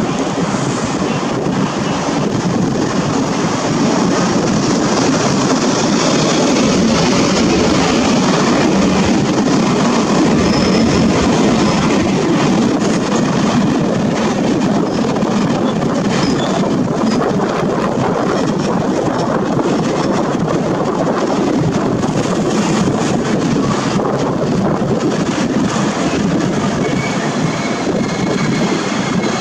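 Passenger train rolling through the station, a steady rumble of wheels on rail.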